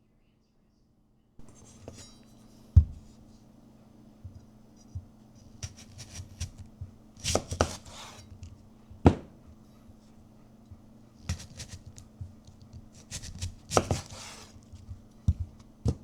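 Irregular sharp knocks and short clattering, scraping rustles over a low steady hum, with about three louder knocks spread through.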